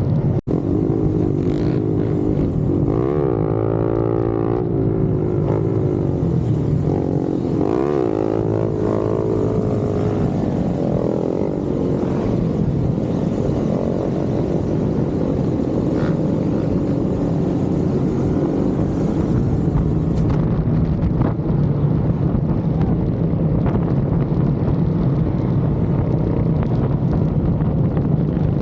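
Motorcycle engines running steadily, with the engine pitch rising and falling as the throttle is worked a few seconds in and again around eight seconds in.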